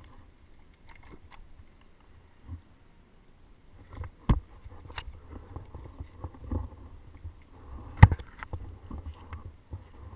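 Scattered knocks and scuffs from a climber handling and shifting on the top of a cut pine stem, with two sharp knocks about four and eight seconds in, the second the loudest, over a low rumble.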